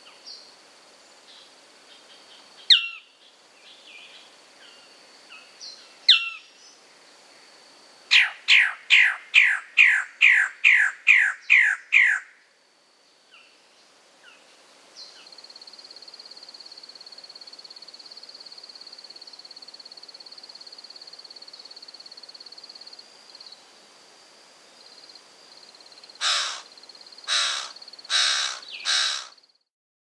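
Male magnificent bird-of-paradise calling: two single sharp notes, then a run of about a dozen loud falling notes over some four seconds, and near the end four loud harsh calls. An insect buzzes steadily at a high pitch behind them.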